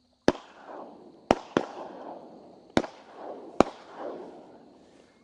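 Five shotgun shots in under four seconds: a single shot, a quick pair, then two more, each trailing off in a long echo. Several guns are firing at passing ducks. A steady high insect trill runs underneath.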